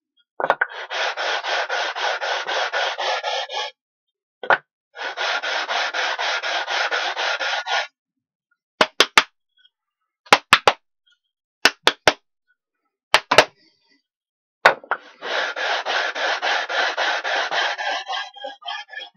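A sanding block rubbed back and forth by hand along the edge of a wooden panel, in three spells of quick rhythmic strokes. In the pause between the second and third spell there are short, sharp clicks in small groups of two or three.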